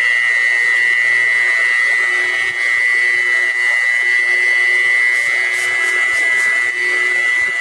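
Electric car buffer spinning a wool pad against car paint, running steadily at speed with a constant high motor whine during a compounding pass.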